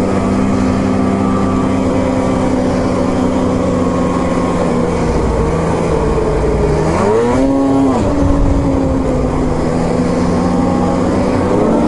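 Two-stroke snowmobile engine running steadily under way, revving up briefly about seven seconds in and settling back.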